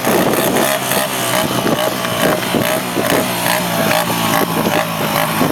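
Small motorcycle engine running and revving, its pitch wavering up and down, with a rapid, uneven popping through it.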